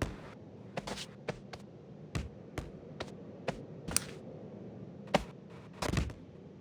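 A series of irregular sharp clicks and taps, about a dozen, over a steady low hum; the sharpest come about four and five seconds in.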